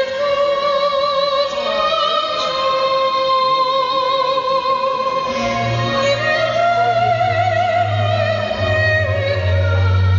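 Operatic music: a singer holds long notes with a wide vibrato over an orchestral accompaniment. A deep sustained bass comes in about halfway through.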